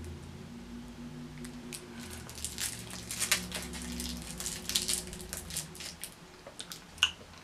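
Plastic twist wrapper of a root beer hard candy crinkling as it is unwrapped, a series of faint crackles and clicks.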